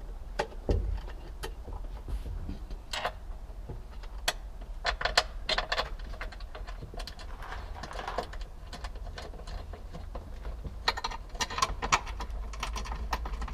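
Scattered sharp clicks, taps and light rattles of hand tools and parts being worked into a car's dashboard carrier, busiest in two spells, over a steady low hum.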